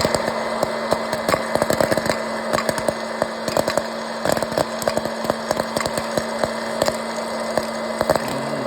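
Popcorn kernels popping as they cook: rapid, irregular pops over a steady hiss.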